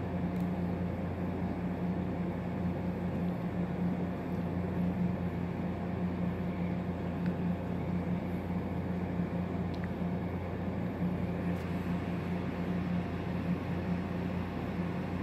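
A steady machine hum with an even hiss over it, unchanging throughout.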